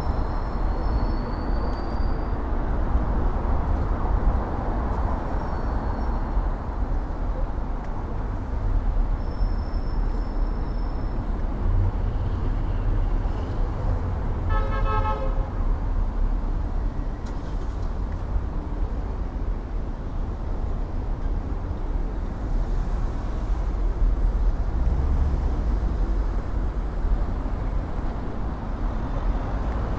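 Steady rush of wind and city traffic noise heard from a moving bicycle, with a car horn sounding once for about a second about halfway through.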